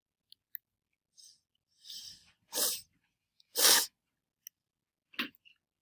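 A person breathing out in a few sharp, breathy bursts close to the microphone, the two loudest about a second apart near the middle, with a few light clicks around them.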